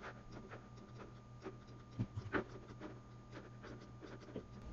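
Faint, scattered clicking from computer input while editing, with two louder clicks about two seconds in, over a faint steady hum.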